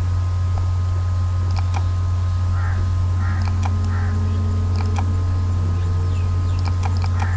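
Steady low electrical hum with a faint high whine, the constant noise floor of a desktop microphone recording. Scattered short sharp clicks, several seconds apart, from a computer mouse clicking.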